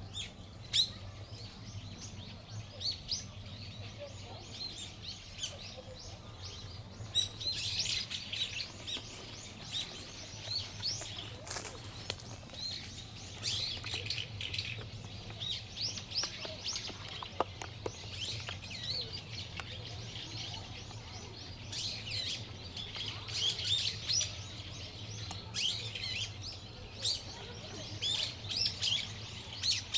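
Small songbirds chirping and twittering: many short, quick calls overlapping, busier from about seven seconds in, over a low steady hum.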